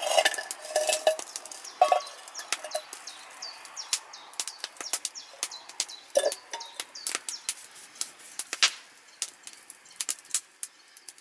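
Wood campfire crackling, with many sharp pops and snaps throughout as the burning wood throws sparks. In the first couple of seconds a metal cup clinks a few times as it is set down on the stones beside the fire.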